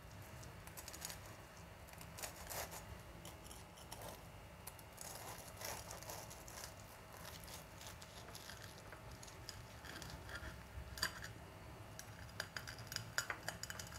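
Faint scraping and clicking of a knife sawing through a fried scotch egg's breadcrumb crust, the blade now and then touching the ceramic plate, with a few sharper clicks near the end.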